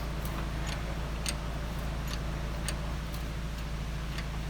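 Sharp metallic clicks at an uneven pace, about one every half second to a second and a half, as a homemade cherry picker's hydraulic ram is worked to lift a heavy load, over a steady low hum.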